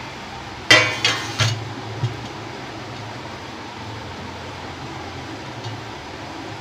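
Onions, tomato and garlic being washed by hand in a bowl of water and set on a steel plate: a few short splashes and knocks about a second in. A steady low hum runs underneath.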